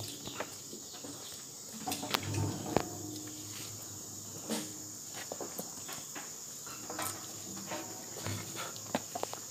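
Wooden honeycomb frames knocking and clicking as they are handled and set into a metal honey extractor, in scattered knocks with a quick cluster near the end. A steady high-pitched insect drone runs underneath.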